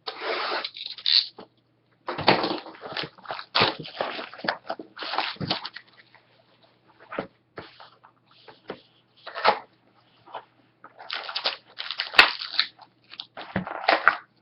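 Plastic shrink-wrap crinkling and tearing and cardboard being handled as a sealed hockey card hobby box is opened, in irregular crackly bursts with short pauses.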